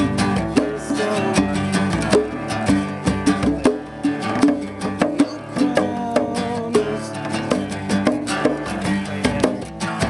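Music: a plucked guitar playing over a quick run of sharp percussive strikes.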